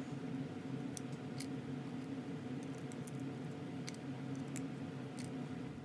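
A few faint, sharp clicks and ticks of tiny metal lock parts (pins, sliders and springs) being handled and picked out of a disassembled lock, over a steady low hum.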